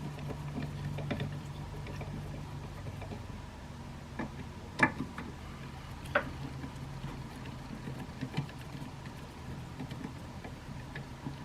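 Tamper-resistant T20 Torx bit working the screws out of a mass airflow sensor: scattered light clicks and ticks, the loudest about five and six seconds in, over a steady low hum.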